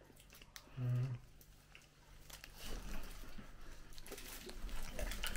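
Plastic wrapper rustling and soft chewing as a wrapped cream-filled snack cake is opened and eaten, with scattered small clicks and a brief hummed 'mm' about a second in.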